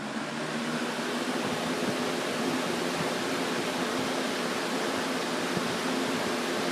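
2006 Lakewood 101DA box fan running on its high setting: a steady rush of air with a low motor hum, growing a little louder in the first second or so as the blades come up to speed.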